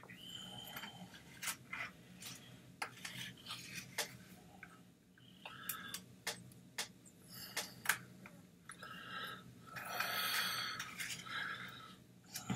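Small plastic clicks and scraping from a Speedglas 9000V welding hood's battery holder as fingers pry its two CR2032 coin-cell batteries out, with a longer spell of scraping about ten seconds in.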